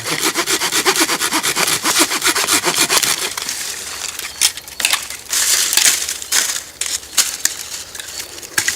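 Cheap folding hand saw cutting through a branch about as thick as a shovel handle: quick rasping strokes at first, then slower separate strokes.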